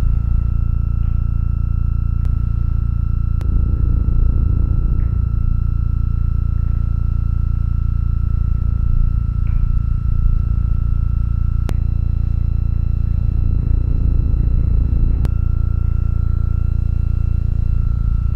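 Hypnotic sound-art drone: a deep, steady hum with a thin high tone held above it. The hum grows rougher twice, about four seconds in and again near fourteen seconds, and a few faint clicks sound over it.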